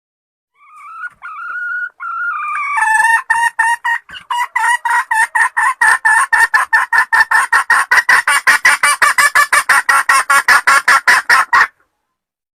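Red junglefowl hen cackling: a few drawn-out notes, then a long run of rapid repeated clucks that quickens to about four or five a second and stops abruptly.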